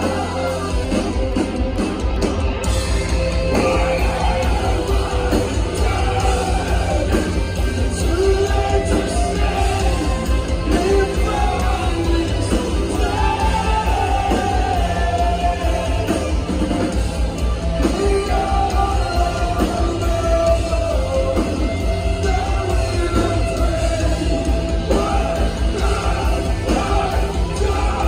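Live rock band playing loudly, with a fast, steady drumbeat under guitars and sung and shouted vocals, heard from within the crowd in a large hall.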